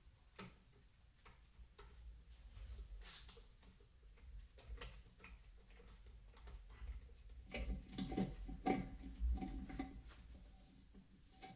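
Faint hand ratchet clicking in short, irregular runs as a bolt is turned with a 15 mm socket, with a few louder metallic knocks about eight to nine seconds in.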